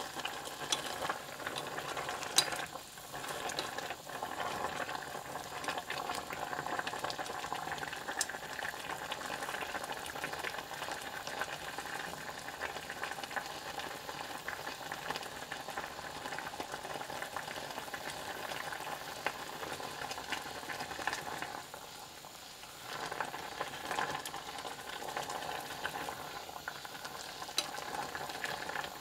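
Water with purple perilla leaves boiling in a stainless steel pot, a steady bubbling crackle with scattered sharp pops, as the leaves are steeped for perilla juice.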